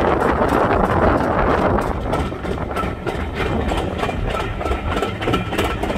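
Passenger train running along the line: a steady rumble with faint rail clicks.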